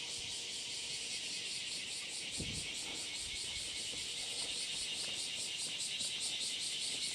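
Cicadas calling in a dense, high-pitched chorus with a fast, regular pulsing.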